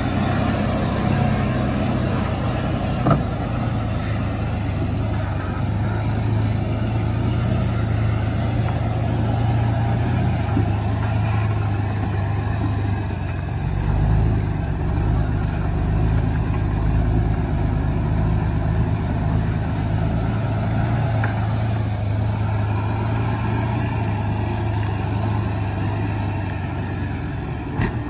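Heavily loaded truck's engine running steadily with a low, even hum; its note changes and grows deeper about halfway through.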